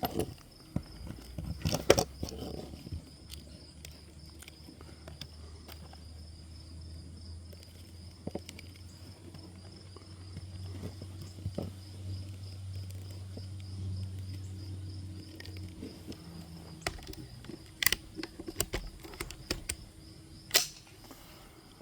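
Shots from a Thompson Center T/CR22 .22 LR rifle: a few sharp cracks, the loudest about two seconds in, two more near the end. Crickets chirp steadily throughout, and a low drone swells and stops about three-quarters of the way through.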